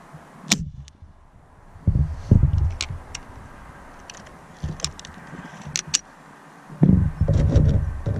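Webley Eclipse .22 underlever spring air rifle being shot and worked: a sharp crack about half a second in, then a run of light metallic clicks and heavy low thumps as it is handled, cocked and loaded.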